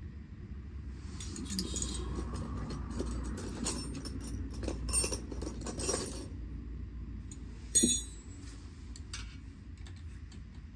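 Metal hand tools clinking and jingling as they are handled, with one loud, sharp metallic clink that rings briefly about eight seconds in.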